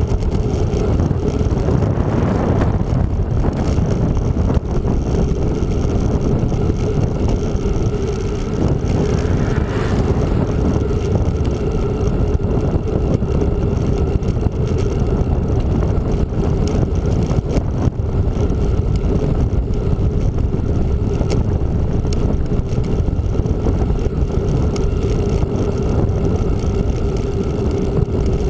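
Steady wind rushing over the microphone of a camera riding on a moving bicycle, with a low rumble of tyres rolling on asphalt.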